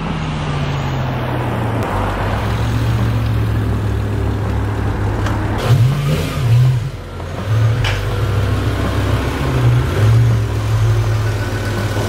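BMW M6's S85 V10 engine running as the car drives, with brief rises in revs around the middle.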